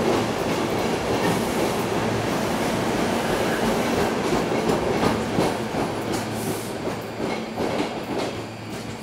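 SEPTA Silverliner V electric commuter train pulling out of the station past the platform: steady running noise with a low hum, then wheel clicks over the rail joints as the last car goes by about halfway through, the sound fading as the train pulls away.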